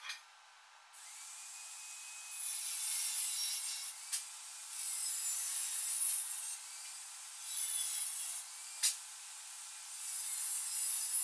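Handheld angle grinder with a cut-off disc cutting through rusty steel square pipe. The motor starts running about a second in, then a harsh grinding hiss comes in four passes of one to two seconds as the disc bites into the steel, with the motor's whine dipping under load. Two sharp clicks fall between the passes.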